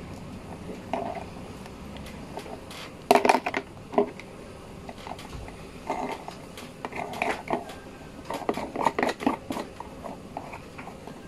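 Thin plastic storage box handled and worked by hand: a scattering of knocks, taps and crackling creaks of the plastic, with a loud cluster about three seconds in and more through the second half.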